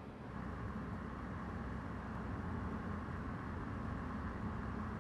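A car driving, with a steady hum of engine and tyres on the road.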